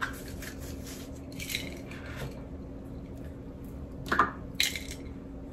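Small cardboard gift box being opened and handled by hand: scattered soft rustles and scrapes, with two sharper knocks or clicks about four seconds in.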